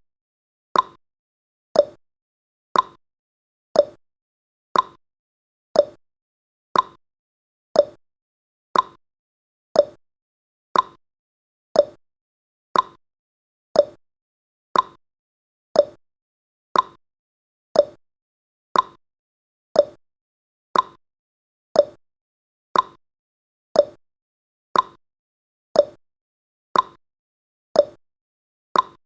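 Countdown timer's clock-tick sound effect, one sharp click a second, alternating between a higher tick and a lower tock.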